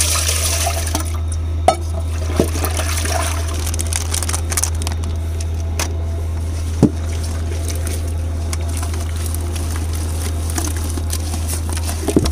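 Liquid gram-flour boondi batter being mixed in a bowl, with wet sloshing and swishing and a few light knocks. A steady low hum runs underneath.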